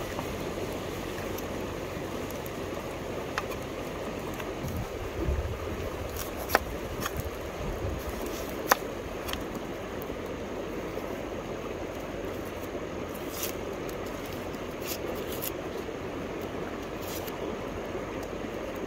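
River water flowing with a steady rushing sound, broken by a few sharp clicks, the two loudest about six and a half and nine seconds in.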